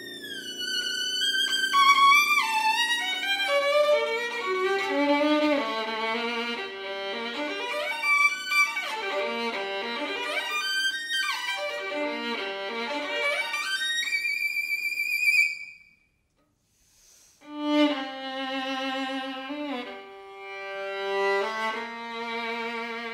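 Solo violin playing a fast passage: a long run falling from high to low, then quick runs sweeping up and down, climbing to a high held note. It breaks off for about a second and a half, then resumes with slower held notes with vibrato.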